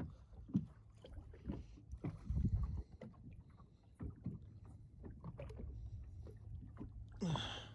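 Quiet handling noise in a small fishing boat as a small zander is held and unhooked: scattered small knocks and clicks over a steady low rumble, with a louder rumble for about a second near the middle.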